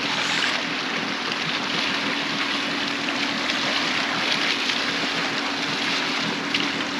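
Steady wash of sea water around a boat's hull, with a steady low engine hum underneath.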